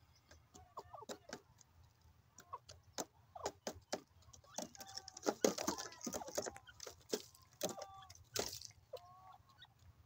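Grey francolin giving a scattering of short calls, some held level and some bending, mixed with quick sharp clicks. It is busiest through the middle.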